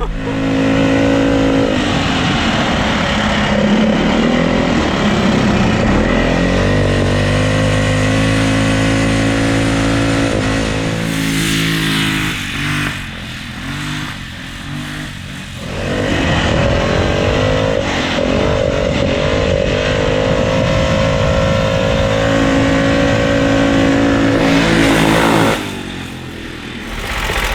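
Predator 420cc single-cylinder engine with a stage 2 kit, running through a Ford Mustang 5.0 muffler on an ATV, held at high revs under hard throttle. About 11 seconds in the revs fall off and waver for a few seconds, then climb back, before dropping again near the end.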